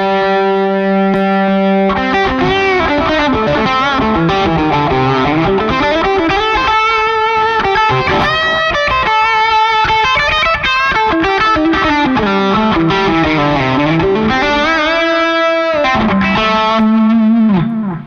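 Electric guitar played through an Officina Elettrica StompAmp Brown pedal amp with an overdriven tone. It opens on a held note, runs through lead phrases with bent notes, and ends on a held note that bends down and cuts off.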